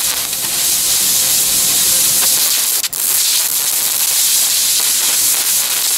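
Steady hiss of HHO (oxyhydrogen) gas jetting from a copper torch nozzle onto a red-hot platinum catalyst. The hiss drops out for an instant about three seconds in.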